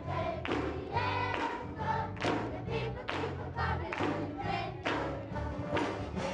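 Children's gospel choir singing a Christmas song, with hand clapping at a steady beat of about two claps a second.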